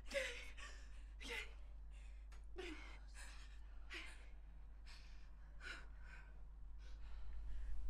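A person's gasping breaths and sighs, irregular and about one a second, over a low steady hum.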